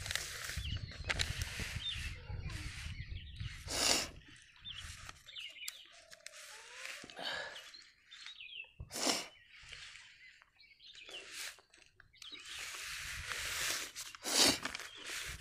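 Paper booklet pages being handled and turned, giving bursts of rustling and crinkling, with a low handling rumble in the first few seconds. Birds chirp faintly between the rustles.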